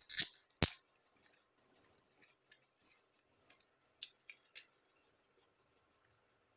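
Sharp clicks and light taps of small hard parts being handled, as multimeter probes are put to a new CMOS coin-cell battery. Two louder clicks come in the first second, then scattered fainter ticks.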